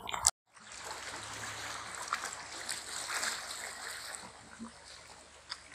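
Small sea waves lapping and splashing against shoreline rocks, a steady wash with small splashes. A brief sharp knock right at the start, then a moment of silence before the water sound begins.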